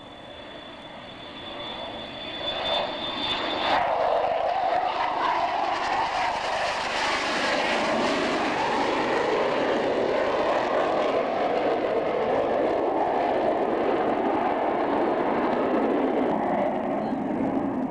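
McDonnell Douglas F-4 Phantom's two J79 turbojets as the jet flies a low pass and pulls up into a steep climb: the jet noise swells over the first few seconds as it closes in, then stays loud and steady.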